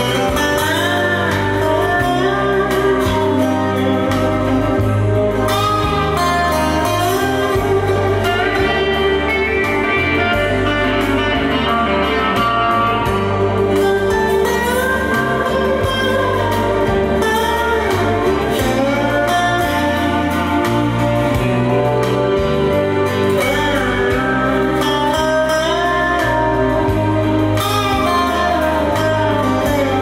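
Music played through a Harman Kardon Aura Studio speaker, with a deep bass line and a melody that bends in pitch, at a steady level.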